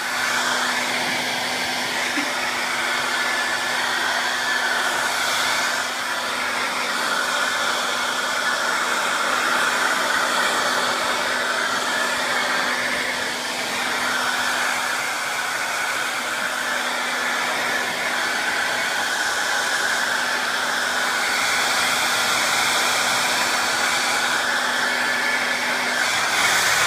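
Conair hand-held hair dryer blowing steadily on a dog's wet coat, a rushing air noise over a constant motor hum. The airflow swells and dips a little as the dryer is moved, and it is switched off right at the end.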